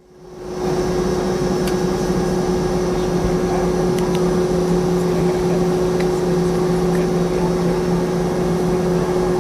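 Steady drone inside a Boeing 717 airliner cabin near the rear-mounted Rolls-Royce BR715 engines, a constant hum with one steady tone over rushing air noise, holding level with no build-up of thrust.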